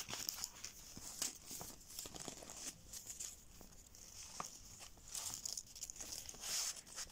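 Coloured paper strips rustling and crinkling as they are folded over each other and pressed flat by hand, with scattered small clicks.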